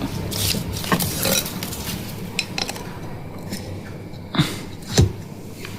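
Metal tools and engine parts clinking and knocking during scooter engine assembly, with two sharper knocks near the end.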